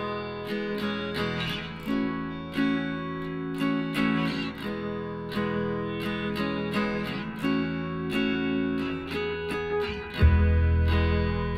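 Background music: acoustic guitar picking a run of plucked notes. A louder, deeper bass part comes in about ten seconds in.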